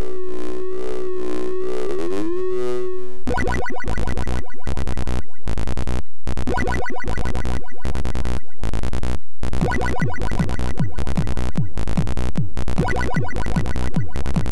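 Commodore 64 SID-chip demo music: a held, wavering synth tone slides upward about two seconds in, then a fast electronic tune kicks in with a steady beat of downward-sweeping chip drums, broken by several brief dropouts.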